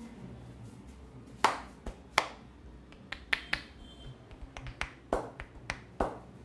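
Hands striking during a massage: about a dozen sharp, irregular slaps and snaps over a few seconds, the loudest two near the start.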